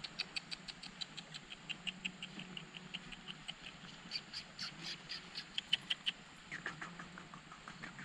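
Puppy squeaking in a fast, even series of short high-pitched squeaks, about five or six a second, turning into a few short falling whimpers near the end.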